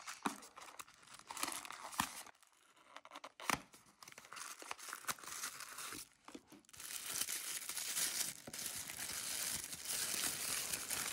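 Thin cardboard gift box being handled and opened out, with short scrapes and clicks, then from about seven seconds in a steady crinkling of tissue paper as it is unwrapped.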